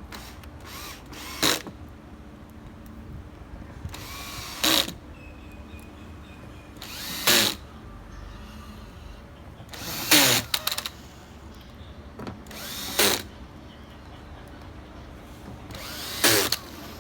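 Handheld power drill run in six short bursts, about one every three seconds, each spinning up and stopping within half a second.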